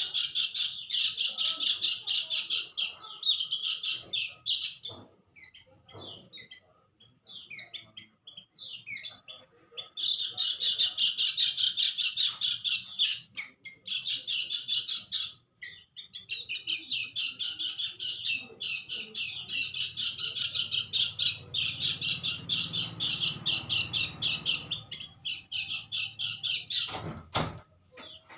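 A bird calling in long runs of rapid, high-pitched chirps, several seconds each, broken by short pauses filled with scattered softer chirps. A short thump sounds near the end.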